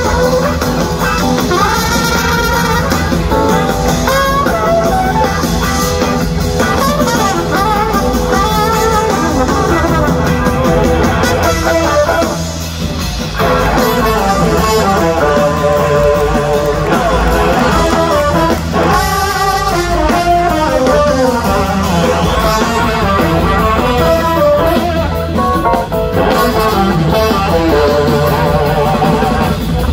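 Live band music in a blues-rock jam: an electric guitar plays a melodic lead over a drum kit.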